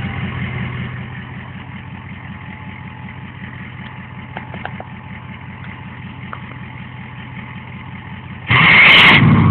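2003 Ford 6.0 Powerstroke V8 turbodiesel idling with a steady, even clatter and a faint turbo whistle. About eight and a half seconds in it is revved hard, and the turbo whistle becomes loud.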